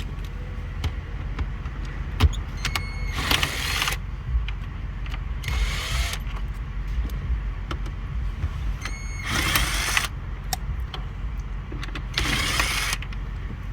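Power screwdriver backing out four dash trim screws, one after another. Each run is a short whirring burst of under a second, with faint clicks between, over a steady low rumble.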